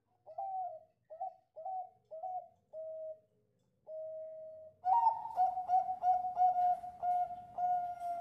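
A Bangkok-strain zebra dove (perkutut) singing its cooing song. It starts with five short, falling coos and one longer held note. About five seconds in comes a louder run of quick coos, about three a second.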